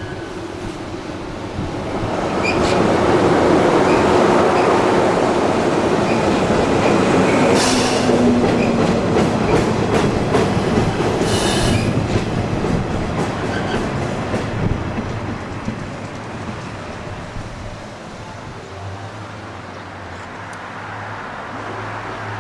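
103-series electric commuter train passing close by: the running noise swells as it approaches, is loudest for about ten seconds with a few sharp clatters from the wheels, then fades as it moves away.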